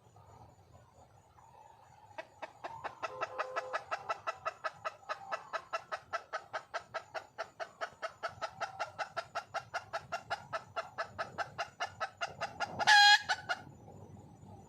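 Red junglefowl hen clucking in a fast, even series of about five clucks a second, then one short, loud call near the end: a wild hen calling for a mate.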